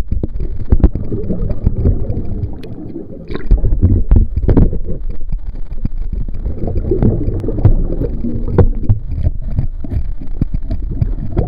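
River water heard underwater: a continuous low churning rumble of flowing current, broken by frequent short knocks and clicks.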